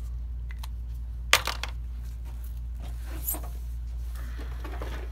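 A sharp clack of a small hard object knocked or set down on the workbench a little over a second in, followed by a few lighter clicks and some rustling handling noise, over a steady low hum.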